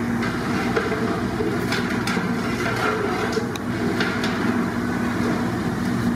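A steady mechanical drone with a constant low hum, with a few light clicks about two and four seconds in.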